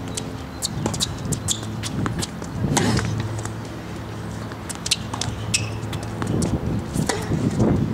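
Tennis rally: sharp knocks of the ball coming off the rackets and bouncing on the hard court at irregular intervals, the loudest about five seconds in, over a steady low hum.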